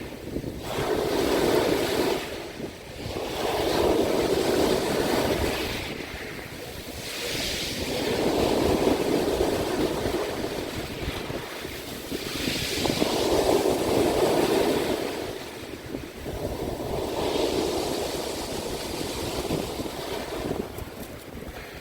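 Sea waves breaking and washing on the shore, swelling and ebbing about five times, one wave every four to five seconds.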